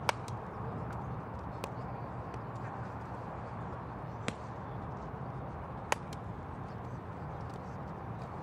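A handful of sharp, single cracks and pops from an infield ground-ball drill, a baseball struck and smacking into a leather glove, the loudest just at the start and again about six seconds in. Under them runs a steady low outdoor rumble.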